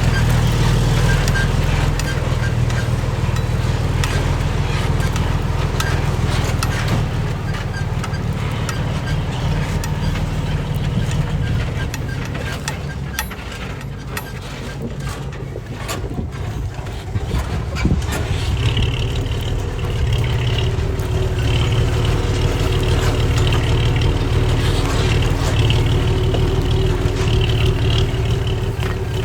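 Diesel engine of heavy earthmoving equipment running steadily under work. It eases a little midway, then picks up again, with a higher whine joining in over the second half.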